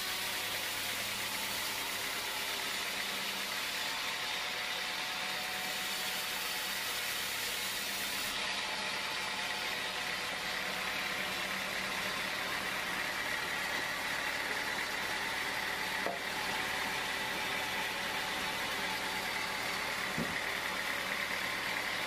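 Band sawmill running steadily, its vertical blade sawing through a teak log, with a steady high tone over the machine's hum. Two small clicks come in the later part.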